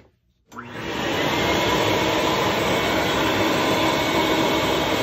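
Vacuum suction motor for leaf casting switching on about half a second in, rising quickly to full speed and then running steadily, drawing water out through the wet paper pulp fill.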